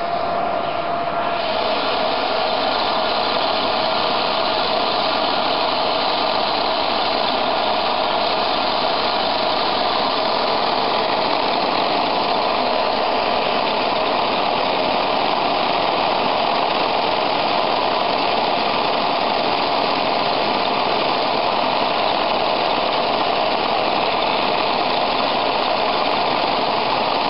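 Vacuum cleaner running steadily, drawing air through a Lego pneumatic boxer engine whose pistons clatter rapidly as its flywheel spins; the sound fills out about a second in as the engine gets up to speed.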